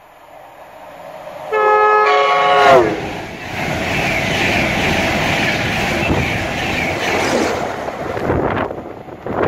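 LNER InterCity 225 express train (Class 91 electric with Mark 4 coaches) sounding a two-note horn as it approaches, the pitch dropping as it draws level. Then the loud rush and rumble of the coaches passing close at speed, weakening near the end.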